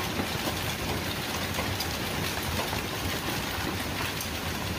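Hailstones pelting a lawn and a brick patio: a steady, dense hiss thick with small clicks of stones striking the ground.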